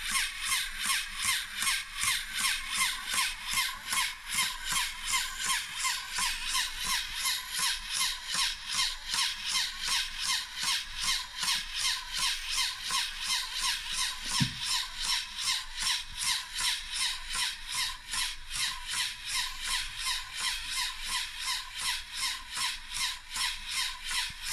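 LEGO Technic pneumatic engine running on compressed air: an even rhythm of hissing air puffs, about three a second, as its valves exhaust the cylinders in turn. A single low bump about halfway.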